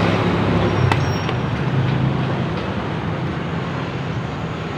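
Steady motor-vehicle and road-traffic noise with a low engine hum that fades over the first two seconds, and a couple of light metallic clicks about a second in.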